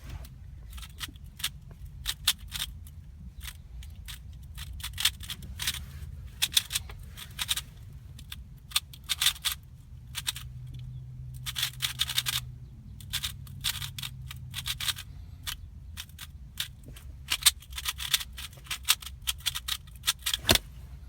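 Rubik's cube turned one-handed at speed: rapid clicking and clacking of the layers in quick bursts with short pauses between them.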